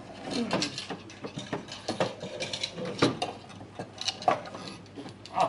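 Hand-made wooden drawers sliding into and out of their slots in a multi-drawer wooden cabinet, wood rubbing and knocking on wood in a run of irregular clicks and knocks.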